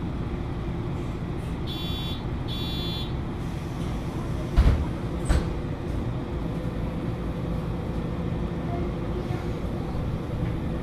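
MAN Lions City A21 NL323 city bus idling steadily at a stop. Two short electronic beeps come about two seconds in, then two heavy thumps a little under a second apart near the middle.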